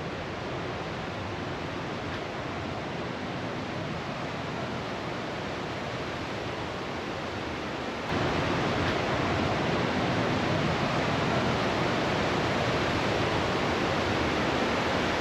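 Rushing, roaring water of the Partnach River torrent in its gorge, a steady roar that becomes louder about eight seconds in.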